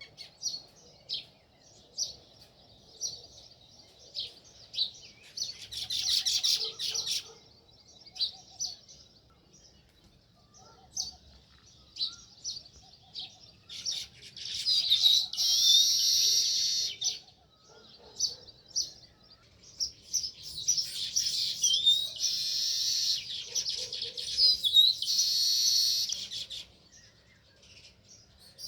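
House sparrows chirping: single short chirps about a second apart, broken by three spells of dense, overlapping chirping, the second and third longer and louder.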